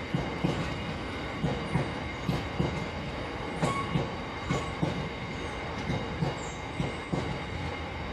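Freight train's open box wagons rolling past, their wheels clicking over rail joints in a steady rhythm of paired knocks over a continuous rolling rumble.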